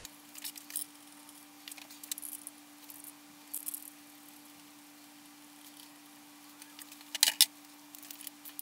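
Faint metallic clicks and clinks of bolts and hand tools being handled while bolting an oil pump onto an engine block, with a louder short metallic clatter about seven seconds in. A steady low hum runs underneath.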